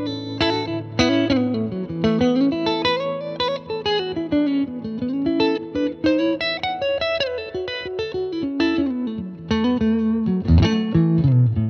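Electric guitar played through a Fender Tone Master Princeton Reverb combo amp: quick picked single-note melodic lines that climb and fall, with a few lower held notes near the end.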